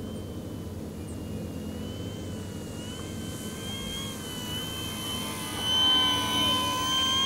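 Whine of the E-Flite P-51D Mustang's electric motor and propeller in flight, steady in pitch. About six seconds in it grows loud as the model makes a low pass, with tones sliding as it goes by.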